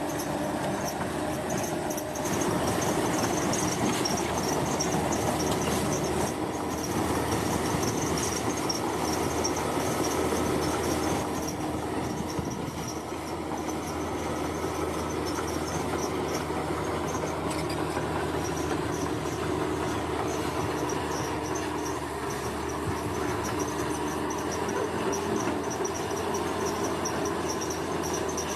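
Heavy construction machine's diesel engine running steadily, a bit louder for the first several seconds, with insects chirping high above it.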